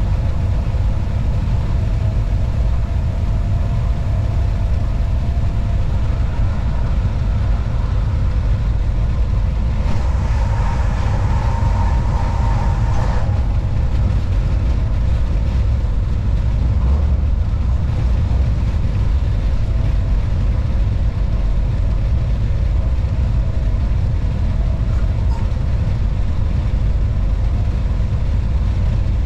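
Cab noise of a Class 187 (Bombardier TRAXX) electric locomotive on the move: a steady low rumble with faint steady tones over it, briefly brighter and louder about ten seconds in for a few seconds.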